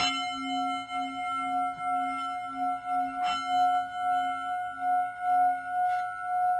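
Singing bowl ringing with a sustained, slowly wavering tone, struck softly again about three seconds in and near the end.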